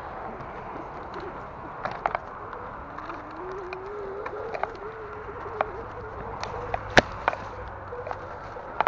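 Bicycle rolling along a dirt single track over leaf litter: steady tyre and trail noise with sharp clicks and knocks as the bike rattles over bumps, the loudest about seven seconds in. A faint wavering tone rises slowly from about three seconds in.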